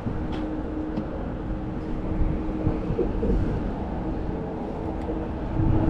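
Wind buffeting the microphone as a continuous low rumble, with a faint steady hum running underneath.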